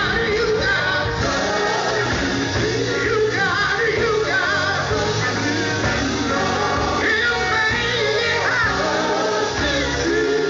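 Gospel quartet singing live with a band: lead and harmony voices over electric guitar, bass guitar, drums and keyboard.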